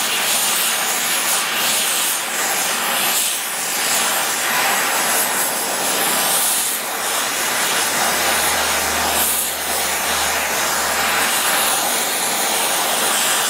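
Oxy-fuel brazing torch burning with a steady hiss of the flame, held on a cast-iron part to bring it toward red heat before bronze brazing.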